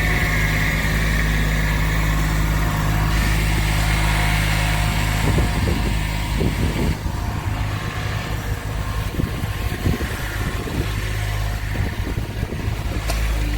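Kubota B7500 compact tractor's three-cylinder diesel engine running steadily at working throttle. The sound eases slightly about six or seven seconds in.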